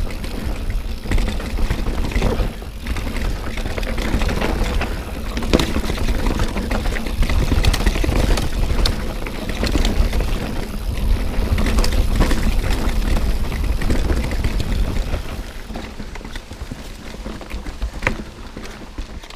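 Mountain bike riding fast down a rooty, rocky dirt trail: tyres rolling over roots and stones, with clicks and rattles from the bike and heavy wind rumble on the camera microphone. It becomes quieter about three-quarters of the way through.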